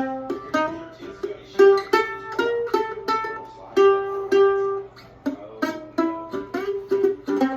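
Mandolin playing a blues in the key of C, a run of plucked single notes and two-note double stops with a few notes left ringing.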